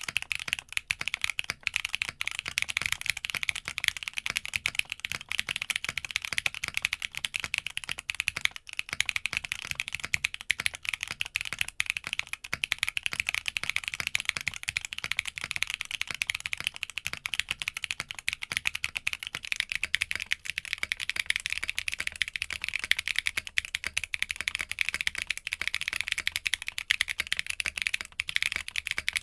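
Continuous fast typing on an Arc60 60% mechanical keyboard with lubed Zaku II switches: a dense, steady stream of keystrokes, first on the carbon-fibre plate and then, later on, on the polycarbonate plate.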